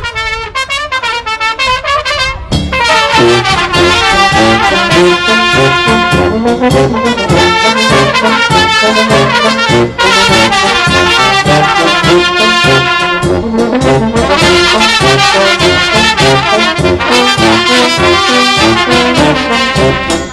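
Romanian taraf brass band playing a lively folk tune: trumpets and brass horns over a steady bass line. A thinner opening phrase gives way to the full band playing loud about two and a half seconds in.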